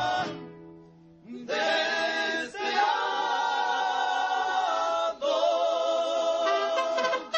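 Mariachi ensemble's male voices singing long held notes in harmony, with a wavering vibrato. The chord dies away about a second in, a new one swells in just after, and it changes pitch again past the middle.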